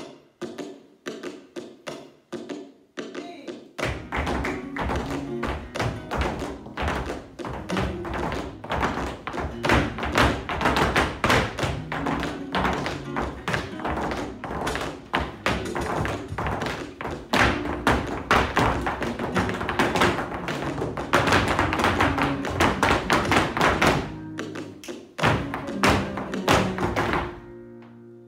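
Flamenco music in 12/8 for a jaleo extremeño: sharp percussive taps for the first few seconds, then fuller music with a dense run of percussive strikes over it. The music dips briefly about twenty-four seconds in and stops shortly before the end.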